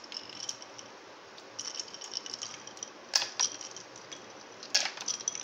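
Ice cubes clinking and rattling in a bowl as they are tipped into a blender jar, with scattered light clinks and two louder knocks about three and five seconds in as cubes drop into the jar.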